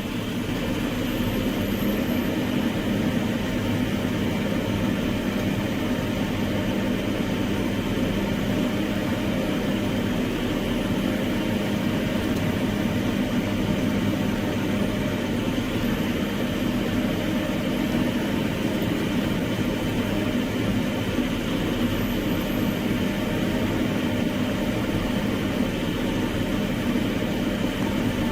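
Heavy machine's diesel engine running steadily at an even pitch.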